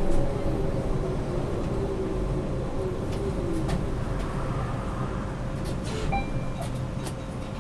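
Interior of a city transit bus on the move: a steady low rumble, with a motor whine sliding down in pitch and fading over the first couple of seconds. Scattered short rattles and clicks come from the cabin.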